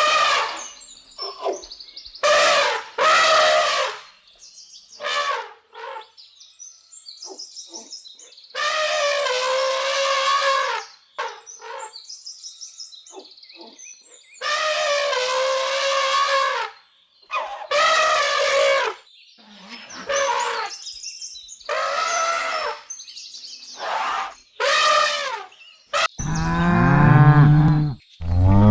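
A series of loud, drawn-out animal calls, with faint high bird chirps in the gaps between them. Near the end a cow starts mooing in a lower pitch.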